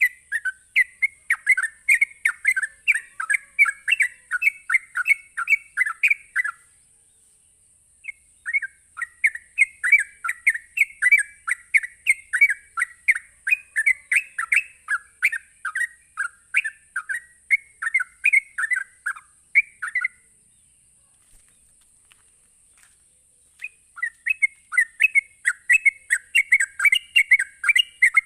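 Trucuk (yellow-vented bulbul) singing its rapid, chattering ngropel song: quick strings of bright notes in three long runs, with pauses of about a second and a half and about three seconds between them. A faint steady high hiss runs under it.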